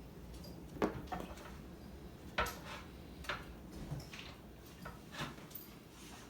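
Scattered sharp clacks and knocks of kitchen dishes and utensils, as flour-coated tomato pieces are worked in a bowl; the loudest knocks come a little under a second in and about two and a half seconds in.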